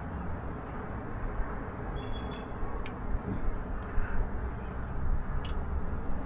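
Steady low outdoor rumble with a few light clicks as a silicone snap-in hole plug is pressed into a hole under a truck's front end, and a brief high chirp about two seconds in.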